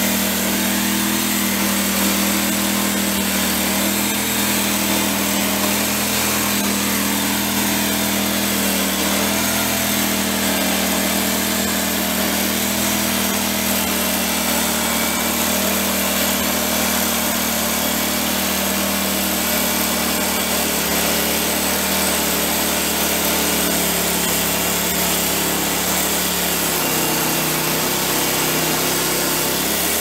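Wood-Mizer LT15 portable band sawmill running, with a steady drone from its engine and spinning band blade as the saw head travels toward the log. Near the end the tone drops as the blade starts into the wood.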